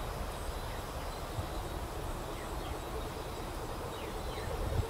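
The bow hummer (ek) of a Thai Isan kite droning steadily in the wind overhead, the hum growing stronger over the last couple of seconds, with wind rumbling on the microphone.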